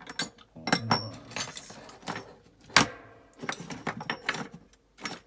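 Small parts of a WE P90 airsoft trigger pack clicking and rattling as the housing is handled and turned in the hands, a run of short light clicks with one sharp click about halfway through.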